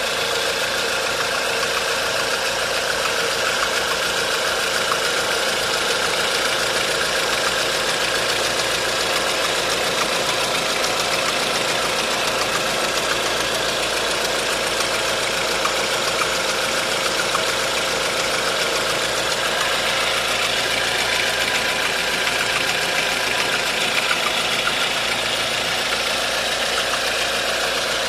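1.4-litre 16-valve engine idling steadily, making an abnormal mechanical noise that has not been traced to the timing chain or its tensioner and that stays with the accessory belt removed.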